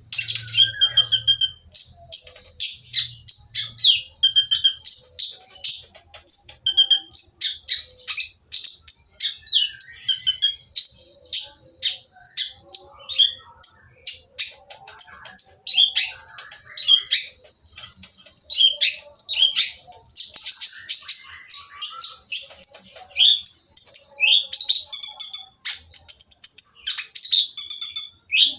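Kolibri ninja sunbird (konin) singing a loud, rough, noisy song: rapid high chirps, trills and harsh notes in a nearly unbroken stream. It is the kind of harsh, busy song that bird keepers play to provoke other konin into singing.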